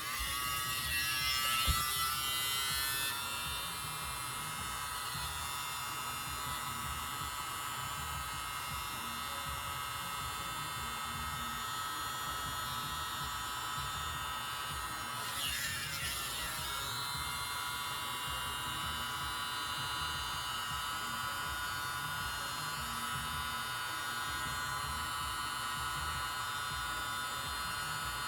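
Tiny handheld mini blower's small motor running steadily with a high whine, blowing wet pouring paint out across a canvas. Its pitch dips briefly about halfway through, then recovers.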